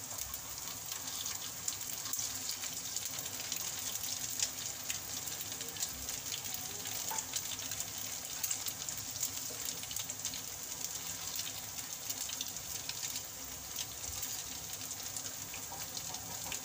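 Hot oil sizzling steadily, with a scatter of small crackles, as shaped balls of leftover Maggi noodles fry in a small pan, being turned until golden brown.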